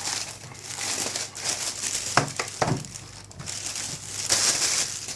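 Keyboard packaging crinkling and rustling as it is handled, with a couple of sharp knocks a little past two seconds in.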